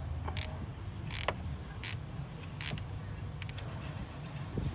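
Ratchet wrench clicking in short bursts of strokes, tightening a 10 mm car battery terminal clamp nut, over a low steady hum.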